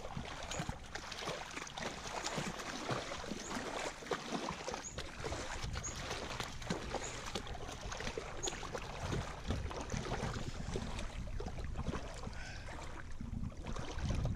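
Shallow water splashing and sloshing irregularly as a golden retriever wades through it.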